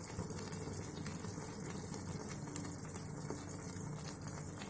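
Tomato and cashew masala frying gently in a steel pan, a soft steady sizzle and bubbling with small pops.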